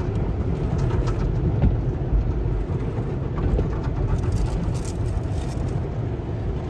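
Automatic tunnel car wash's soft-cloth brushes sweeping over a car, heard from inside the cabin: a steady rumbling swish of cloth strips and water on the windshield and roof.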